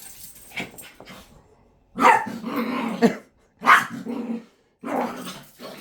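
A dog giving three loud, drawn-out barks, the first about a second long, after a few faint knocks in the first second and a half.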